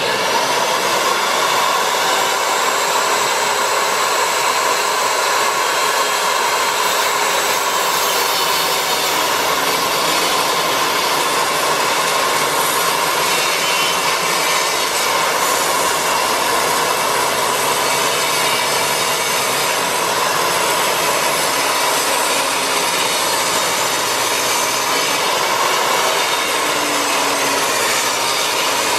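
Portable table saw ripping a long wooden board, the blade cutting steadily under load.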